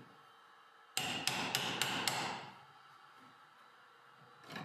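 Hammer striking a steel tool held against the wooden cupboard door at its iron lock plate: five quick metallic blows about a second in, each ringing briefly, then one more blow near the end.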